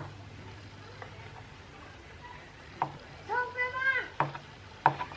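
A person's voice making one drawn-out high sound lasting under a second, about two-thirds of the way in, among a few sharp knocks.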